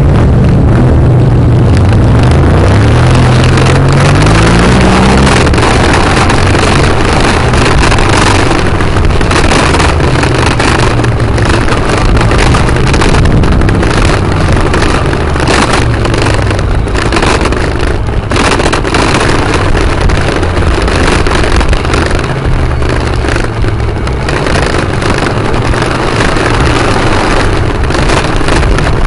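Motorcycle engine pulling away, its pitch rising through a gear in the first few seconds, then running steadily at riding speed with wind noise on the microphone.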